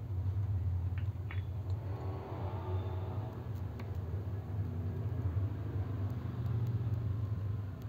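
A steady low hum or rumble, with a couple of faint clicks about a second in.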